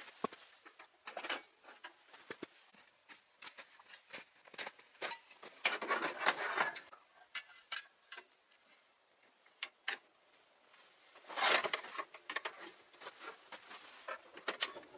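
Irregular light clicks and taps, with two longer rustling or crunching stretches about six and about eleven seconds in.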